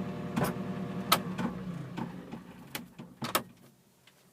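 Mini excavator's diesel engine idling and then shutting off, running down and going quiet about three and a half seconds in. Sharp clicks and knocks sound over it, the loudest about a second in.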